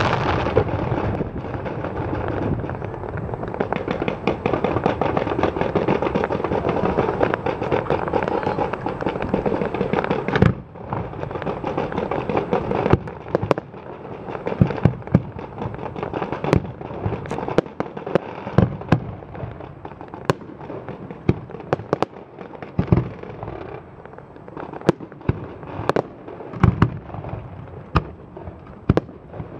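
Fireworks display: dense, continuous crackling for roughly the first ten seconds, then a run of separate sharp bangs from aerial shells bursting at irregular intervals.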